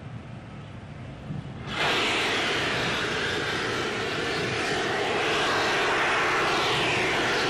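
Super Heavy booster venting gas from the top of its tank: a loud, steady rushing hiss that starts abruptly about two seconds in.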